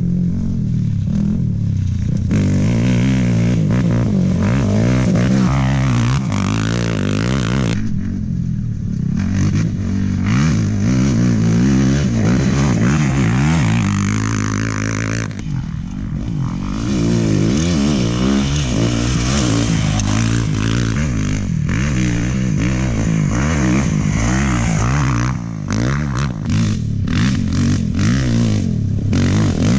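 Off-road race motorcycle and quad engines revving hard as they pass, the pitch rising and falling with throttle and gear changes.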